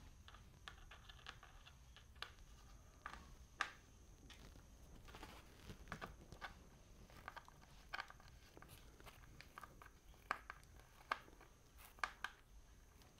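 Faint, scattered small clicks and light scrapes of a flathead screwdriver tightening the fittings on a speargun's roller muzzle, with a few sharper ticks.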